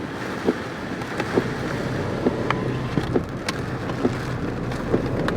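Car driving through a storm with steady road and wind noise, and irregular sharp taps of things striking the car's body and windows.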